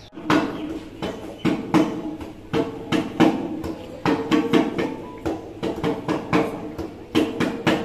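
Music that starts abruptly: a steady percussion beat of about two to three strikes a second under a pitched melody.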